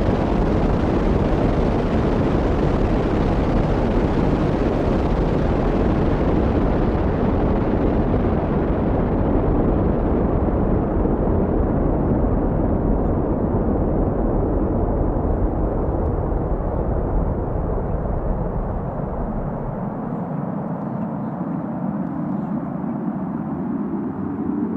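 Rocket engines at liftoff: a loud, continuous rumbling roar. The hiss fades slowly as the rocket climbs away, and near the end the deepest rumble drops out.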